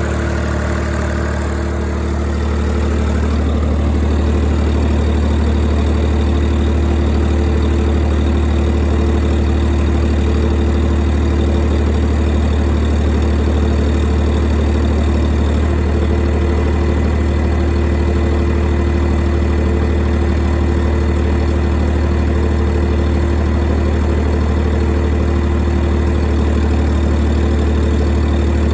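YD385 three-cylinder diesel engine driving an 11 kW generator, running steadily with a deep, even drone. It grows slightly louder about three seconds in and then holds a constant note.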